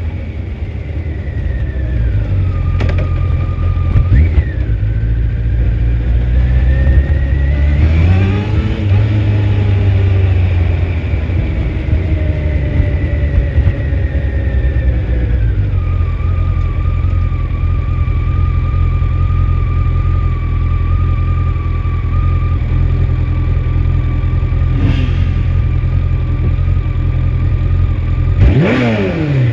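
2004 Honda CBR1100XX Blackbird's inline-four engine running. About eight seconds in the revs rise, then fall slowly over several seconds and settle to a steady note for the second half. Two short throttle blips come near the end.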